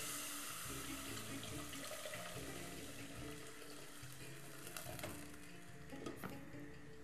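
Water poured from an electric kettle into a cooking pot on the stove, a steady rushing splash that slowly fades as the pour ends. A glass pot lid is set on with a light clink near the end.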